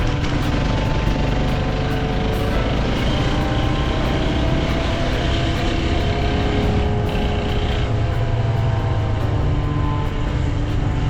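Off-road motorcycle engine running steadily under way, with slow small changes in engine pitch, mixed with wind and road noise on the camera microphone.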